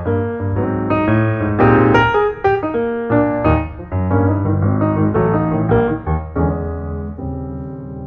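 Background piano music: a flowing run of struck notes and chords, settling into a held chord that slowly fades about two thirds of the way through.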